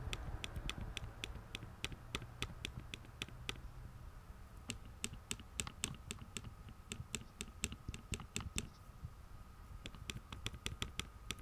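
Space bar of an HHKB Professional 2 keyboard (Topre switches) pressed over and over in three quick runs of about four strokes a second, each stroke a sharp click with a rattle. The rattle is confined to the space bar and has persisted through months of use and lubing.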